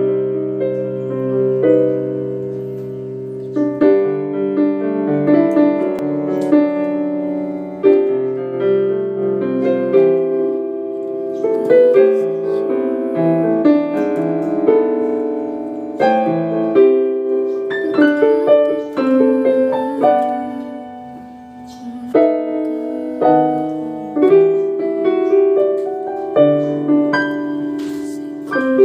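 Casio Privia PX-130 digital piano playing a piece of held chords with a melody on top. The notes are struck and left to ring and fade.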